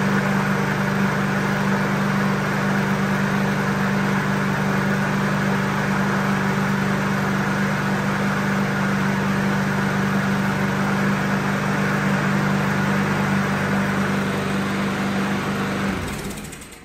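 Oleo-Mac GV53TK lawn mower's four-stroke engine running steadily at constant speed, with its oil-soaked air filter removed, then shut off near the end.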